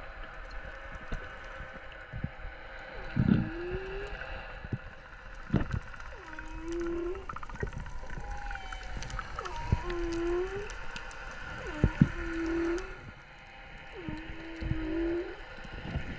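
Underwater sound: a steady crackle of small clicks, with a series of five short, low moaning calls about every two to three seconds, each sliding up at the start and then holding one pitch.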